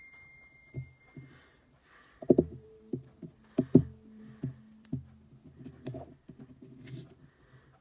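Small clicks and knocks of an iPhone 6s and tools being handled while the phone is closed. A quick run of sharper knocks, some with a short ringing tone, comes about two to five seconds in, then lighter ticks follow.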